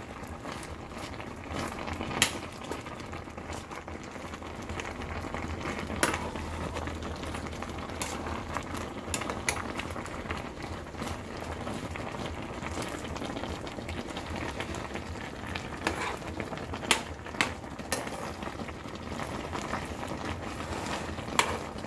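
Pot of sinigang soup bubbling at a steady boil, with a few sharp clicks scattered through.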